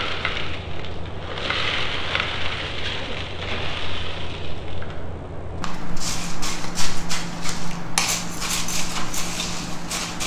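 Dry granola poured from plastic cups into yogurt parfait cups, a crackling rattle. About halfway through this gives way to plastic spoons stirring and scraping in plastic cups, many quick clicks and taps.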